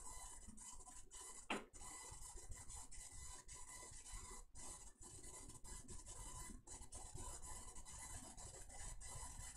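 Near silence: faint steady hiss of room tone, with one brief soft sound about one and a half seconds in.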